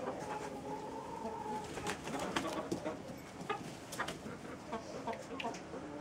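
Chickens making low, drawn-out calls, one held call in the first second and a half, with scattered sharp taps through the rest.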